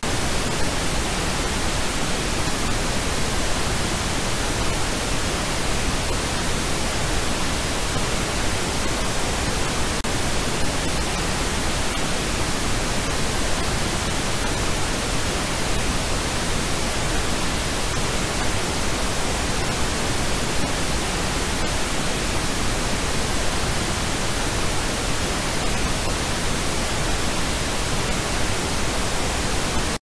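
Steady electronically generated noise signal, an even full-range hiss that does not change, cutting off suddenly at the very end.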